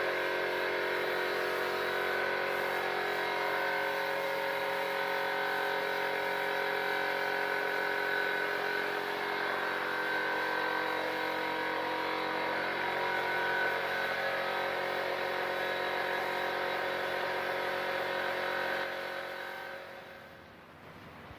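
A power tool's electric motor running at a steady speed, then winding down and stopping about 19 seconds in.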